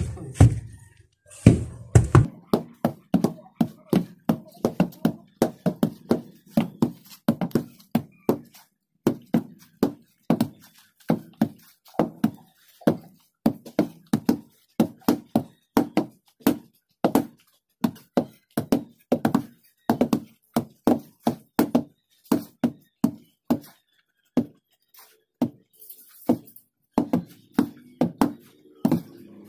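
Wooden hand tampers thudding repeatedly on loose soil, two people pounding the ground to compact a dirt floor, about two to three blows a second. The blows stop briefly near the end, then resume.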